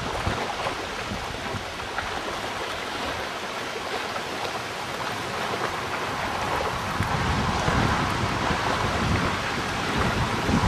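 Gusty wind at the front of an approaching severe thunderstorm, buffeting the microphone as a steady rushing noise with uneven low rumbles, growing a little stronger about seven seconds in.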